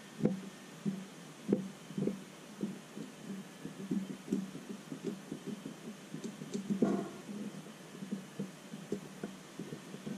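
Soft, irregular low knocks and bumps of hands handling test leads and probes on a circuit board, several a second, with a slightly louder, brighter rustle or clatter about seven seconds in, over a low steady hum.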